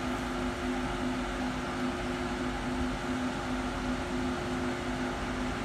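Steady machine hum with a low drone that pulses about two and a half times a second and a steady tone just above it.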